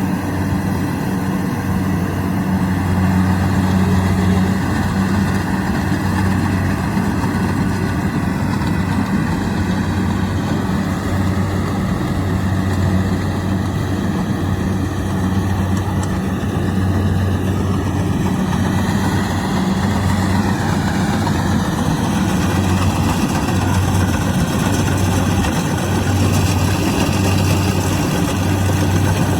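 Kubota DC-70 Plus rice combine harvester's diesel engine running steadily under work, a constant low hum with machinery noise over it.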